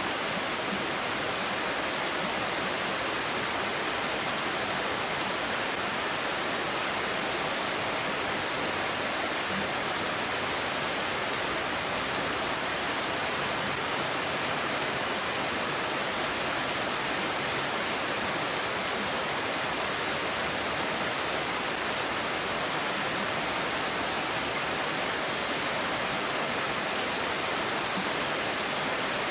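Steady rainfall, a continuous even hiss with no single drops, gusts or other events standing out.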